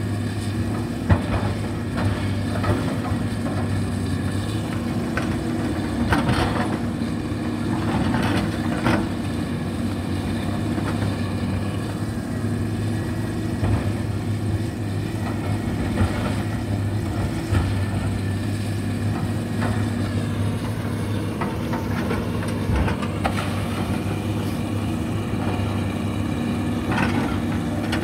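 Caterpillar 320D hydraulic excavator's six-cylinder diesel engine running steadily at working speed, with scattered cracks and knocks as the bucket pushes through felled branches and brush.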